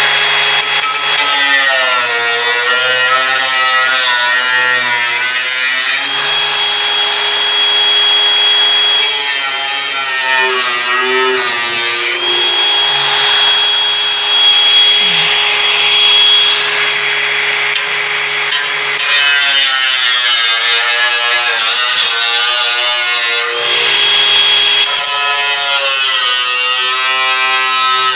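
Electric rotary tool with a cutoff wheel cutting through the door-jamb sheet metal for a new latch. It runs continuously with a high whine, and its pitch wavers as the wheel is pushed into the metal.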